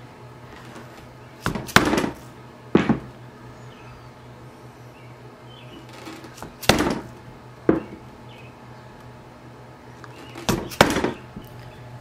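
Sharp knocks of a mallet striking a pricking iron to punch stitching holes through leather. The knocks come a few at a time in three bursts, several seconds apart.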